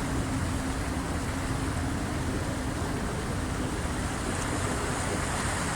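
Waves of the incoming tide washing steadily against the shore, with a low wind rumble on the microphone and a faint steady hum underneath.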